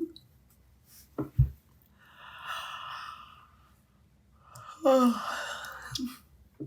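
A woman yawning: a long breathy intake, then a voiced yawn falling in pitch about five seconds in.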